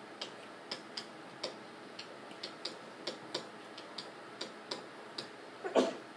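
Stylus tapping and clicking on a tablet screen while electron arrows are drawn, in short irregular clicks about two or three a second. Near the end there is one louder, duller knock.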